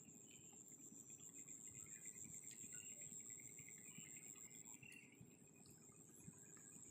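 Near silence: insects trilling faintly in one steady high tone, over a faint low rumble.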